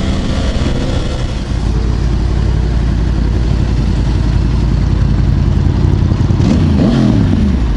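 Yamaha R1 sport bike's inline-four running on the road under a steady rushing noise. Near the end the engine note drops as the bike slows down.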